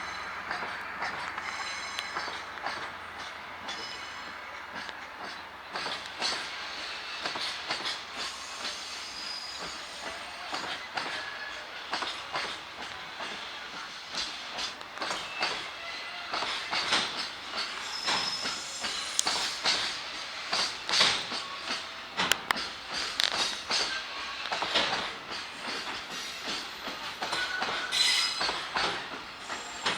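Train passing over a railway level crossing, its wheels clacking over rail joints with a little wheel squeal; the clacking gets louder and denser in the second half.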